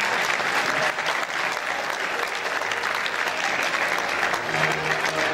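Audience applauding steadily. Background music faintly comes in near the end.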